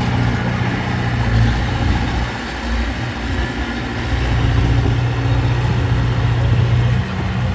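Heavy diesel engine of earthmoving machinery running steadily. It drops off briefly about two and a half seconds in and picks up again about a second later.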